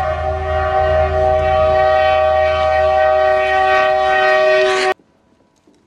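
Locomotive horn sounding a long held chord of several notes over the low rumble of the train, with a rushing noise that builds as the train bursts through a deep snowdrift. Everything cuts off suddenly about five seconds in.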